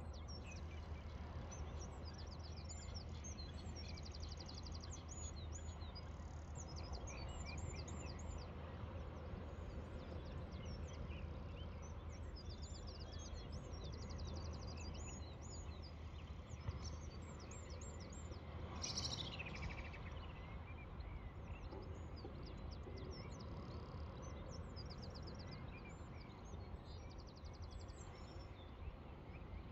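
Small birds chirping and trilling in a faint dawn chorus over a steady low rumble. About two-thirds of the way through, one louder call sweeps down in pitch.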